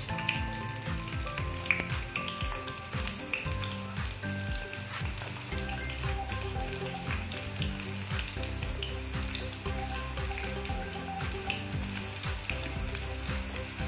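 Frozen shoestring French fries frying in hot oil in a frying pan: a steady sizzle full of small crackles and pops.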